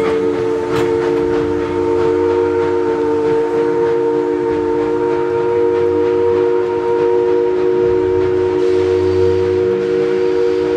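Steam locomotive whistle held in one long, steady chord of several notes, over the low rumble of the moving train.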